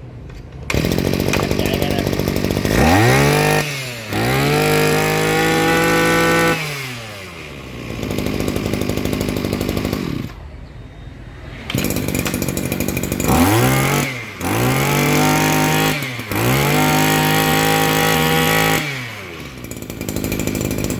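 Small petrol grass-cutter engine running and being revved repeatedly: the pitch climbs to high speed, holds for one to two seconds, then falls back to idle, about four times.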